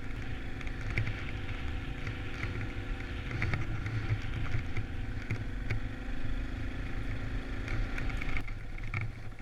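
Motorcycle engine running steadily at low speed, with a held humming tone that drops away about eight and a half seconds in.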